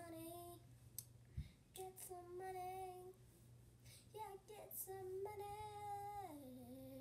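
A boy singing a few held notes without clear words, with short gaps between them; the last long note drops in pitch near the end.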